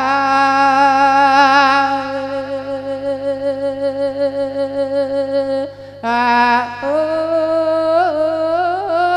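Elderly monk singing an Isan thet lae sermon melody: one long drawn-out note that wavers with vibrato, then after a short break a little before the middle-end, a new held phrase with ornamental turns in pitch.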